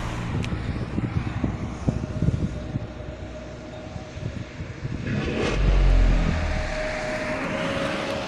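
Custom 8-inch car subwoofer playing deep bass, heard from outside the car, with short rattles from the car's body. The loudest bass swell comes a little past halfway.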